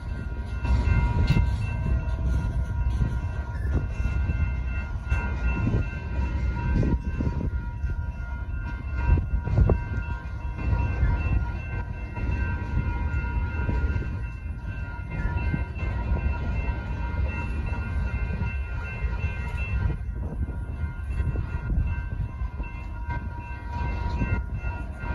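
Freight cars of a manifest train rolling through a grade crossing: a steady rumble of wheels on rail with scattered clanks and knocks, one sharper clank about ten seconds in. Over it the crossing signals' bells ring on without a break.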